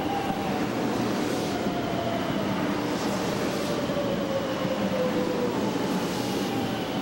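JR West 500 series Shinkansen cars passing close by: a steady rumble of wheels and air, with a thin whine that slowly falls in pitch through the passage.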